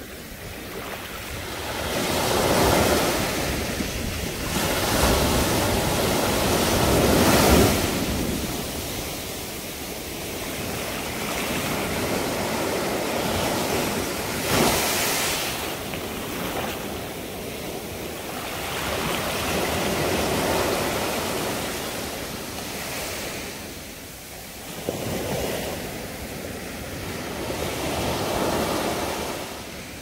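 Small sea waves washing up onto a sandy beach and draining back, a steady surf wash that swells and eases as each wave comes in.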